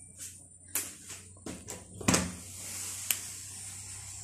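A door being opened and handled: a few knocks and clatters, the loudest about two seconds in, and a sharp click about a second later. A steady high chirring of insects outside comes up from about halfway.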